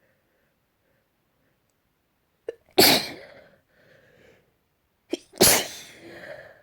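A person sneezing twice, about two and a half seconds apart, each sneeze preceded by a short sharp intake of breath.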